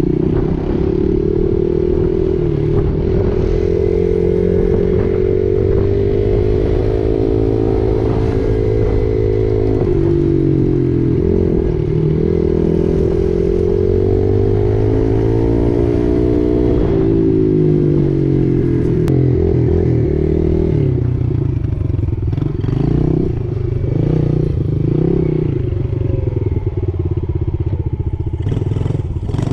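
Dirt bike engine running as the bike is ridden along a paved road, its pitch rising and falling several times as it speeds up and eases off.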